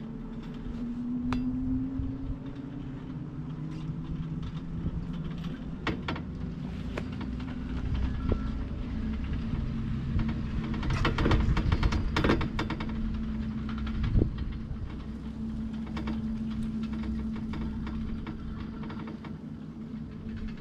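1996 Poma double chairlift running: a steady mechanical hum with scattered clicks and knocks, and a louder clattering rattle a little past halfway through.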